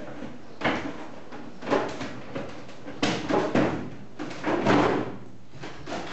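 Thin printed plastic stand panel being handled and flexed, giving several short rustling, clattering bursts.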